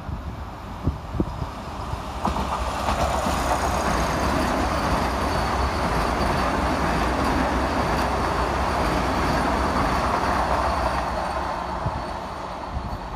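Orange Vande Bharat Express electric trainset running through the station at speed without stopping: a steady rush of wheels on rail that builds as the coaches pass close by and fades near the end.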